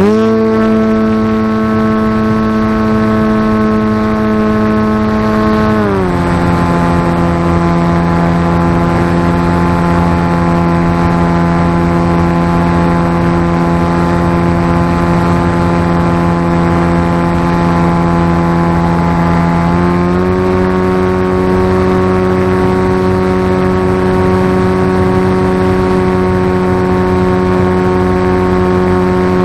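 An RC flying wing's motor and propeller running, heard from a camera mounted on the plane, with wind rushing past. The pitch climbs quickly at the start, drops to a lower steady tone about six seconds in, and rises a little about twenty seconds in as the throttle changes.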